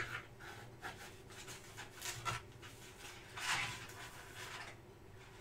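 Faint soft rubbing and scraping of hands pressing dough into a round baking dish, a few strokes about a second apart, with a small click at the start.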